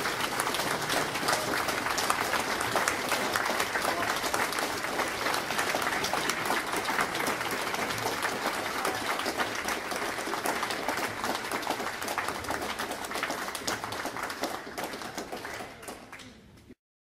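Audience applauding: many hands clapping in a dense, steady patter, fading out near the end and cutting off suddenly.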